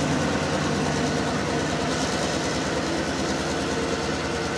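Norfolk Southern EMD GP38-3 diesel locomotive's engine running under power as it pulls a local freight away, a steady low throb that fades slightly.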